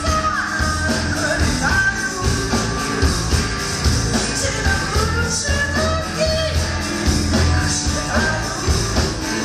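Live rock band playing: a woman singing over electric guitars, bass guitar and drums, with a steady beat.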